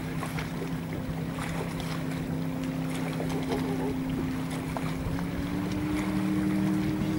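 A boat motor running steadily with a low hum, its pitch stepping up about five seconds in.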